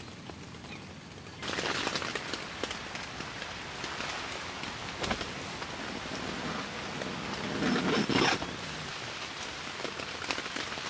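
Steady rain, soft at first, then much louder and denser from about a second and a half in as it patters on a tent, with many small drop ticks. About eight seconds in comes a brief louder rustle of a sleeping bag as the person inside stretches.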